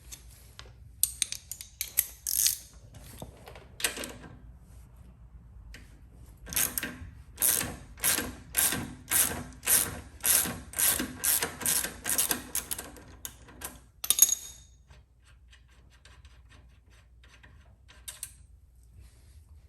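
Socket ratchet loosening a 5/8 nut on a motorcycle's rear brake pedal, its pawl clicking in a steady run of strokes, about three every two seconds. There are scattered clicks before the run and a sharp metal clatter after it.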